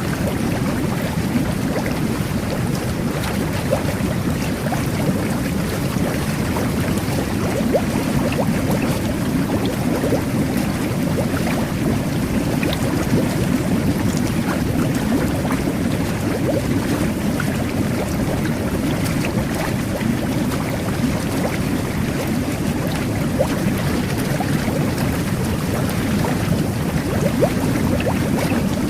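Jetted bubble bath running: water jets churning and bubbling in the tub in a steady low rumble, with small crackles of bursting bubbles on top.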